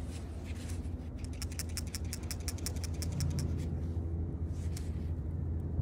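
A new PCV valve for a Subaru FB20 engine is shaken by hand. For about two and a half seconds there is a quick run of light metallic clicks, about eight a second, as its check valve moves inside: the rattle shows the valve moves freely and isn't clogged. A steady low hum runs underneath.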